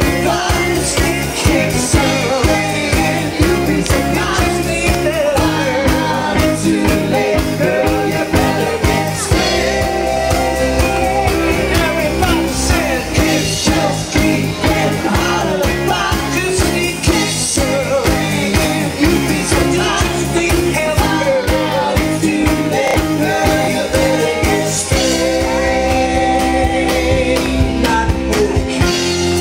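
Rock band playing live with a steady drum beat and sung vocals.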